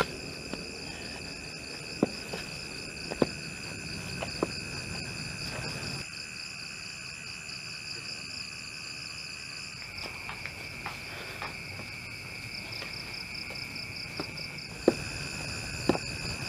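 Crickets chirping steadily in a night ambience, a high continuous trill with a faster pulsing band above it. A few short sharp clicks sound over it, three in the first few seconds and two more near the end.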